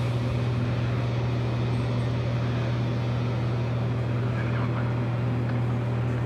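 Steady low mechanical hum that holds an even level throughout, with no clear strokes or knocks.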